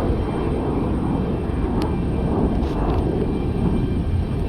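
Jet airliner's engines heard from the ground: a steady, low, rumbling noise with no distinct pitch.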